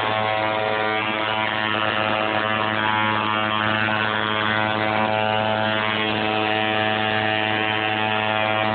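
Coil tattoo machine running against skin, giving a steady, low electric buzz.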